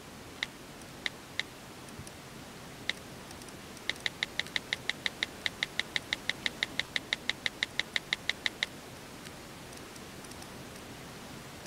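Smartphone keyboard tap sounds as someone types a message: a few single short blips, then from about four seconds in a quick even run of about five a second for some four and a half seconds, over a faint hiss.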